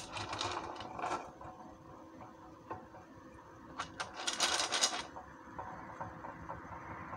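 Washed black-eyed peas stirred by hand in a metal strainer: a clicking rattle of beans against the metal, in a cluster at the start and a louder burst about four seconds in.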